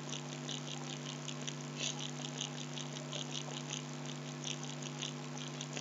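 Steady low electrical mains hum in the recording, with faint light ticks scattered through it.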